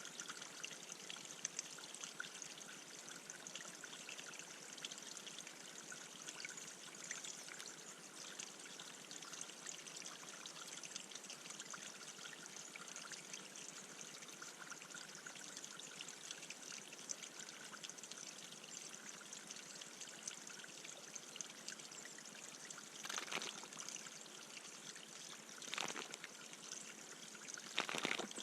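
Bird bath water trickling steadily, with three brief louder bursts near the end.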